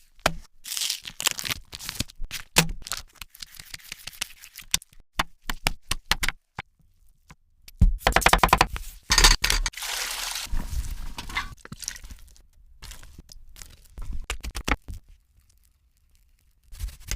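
Kitchen preparation sounds: an irregular run of sharp clicks, taps and short scrapes from utensils and food, with a louder, denser stretch of scraping and rustling about eight to ten seconds in.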